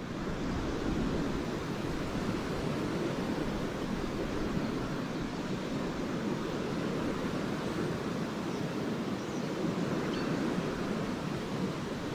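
Lake waves washing steadily onto a sandy beach, a continuous surf noise without breaks.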